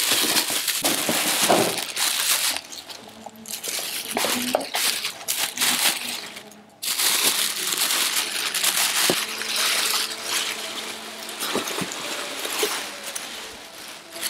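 Thin plastic bin liner rustling and crinkling as it is gathered up and lifted out of a waste bin, with a few light knocks and clicks among the rustle.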